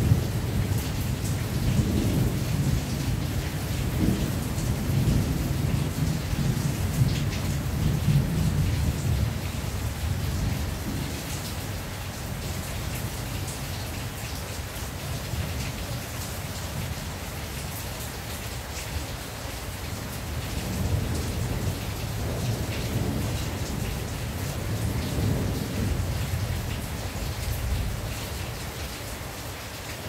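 Heavy rain drumming on a tin roof in a steady patter of drops. Thunder rolls through about the first third and again about two-thirds of the way in.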